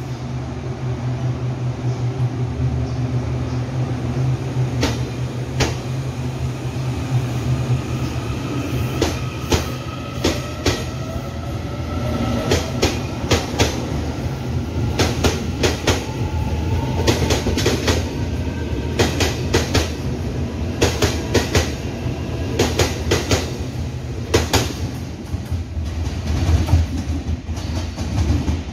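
Taiwan Railways EMU800-series electric multiple unit pulling out and accelerating past, with a steady low hum under it. A rising electric whine comes in about a third of the way through, and the wheels click over rail joints in groups that come more often as the train gathers speed.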